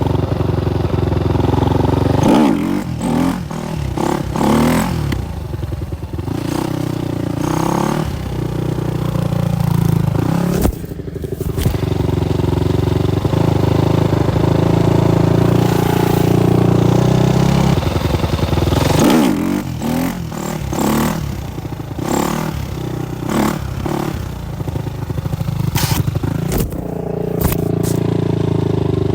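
Supermoto motorcycle engine running and revving, its pitch rising and falling several times between steadier stretches, with a short dip in level about eleven seconds in.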